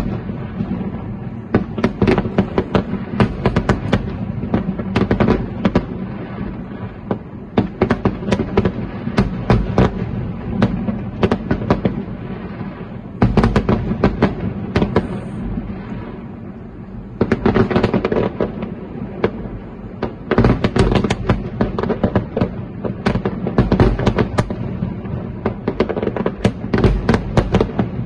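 Fireworks display: a rapid, unbroken barrage of aerial shell bursts and bangs, with heavier flurries at several points.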